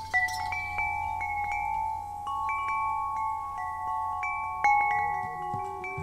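Background music of ringing chimes: struck notes at several pitches start one after another and ring on, overlapping, with a lower note joining about five seconds in.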